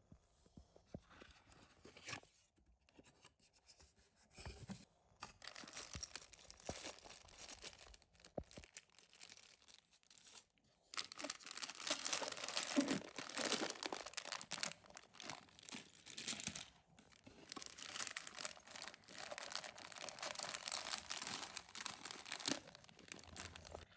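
Sealed plastic bags of small plastic building-brick parts crinkling and rustling as they are rummaged through and lifted out of a cardboard box, in irregular bouts that are loudest over the second half.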